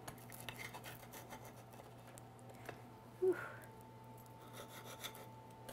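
Table knife sawing through a thin, charred pizza crust on a plate while a fork holds it: faint scraping with scattered small crunching ticks. A brief louder sound comes about three seconds in.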